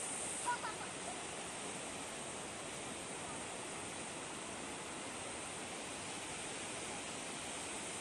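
Shuiliandong waterfall's steady rush of falling water, with a short pitched sound about half a second in.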